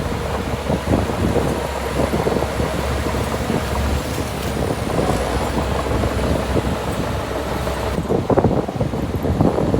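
Diesel engine of heavy earthmoving machinery running steadily under work, with dense rattling and clatter that grows busier near the end; some wind on the microphone.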